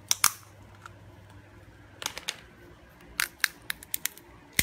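Hartley walnut shell cracking in a hand-held metal nutcracker: two sharp cracks just after the start, then a scatter of snaps and clicks as the cracked shell is broken apart by hand.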